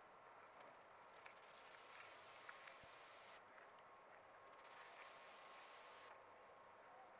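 Insects trilling faintly in a high, fast buzz, in two spells of about two seconds each with short pauses between.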